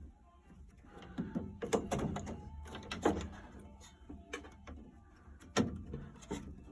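Irregular knocks, clicks and short sliding scrapes of hard parts being handled and fitted, the loudest knock about five and a half seconds in.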